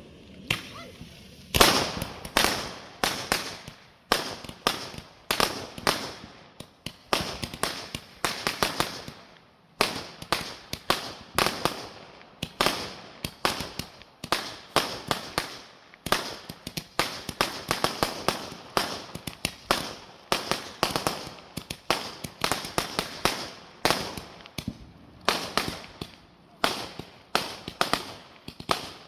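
Consumer fireworks going off in a rapid, unbroken string of sharp bangs, several a second, starting about a second and a half in.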